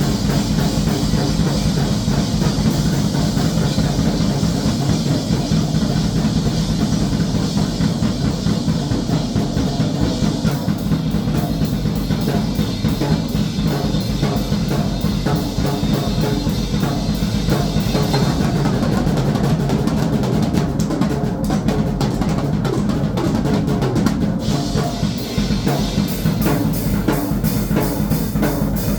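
Drum kit being played: loud, dense, continuous drumming with no pauses.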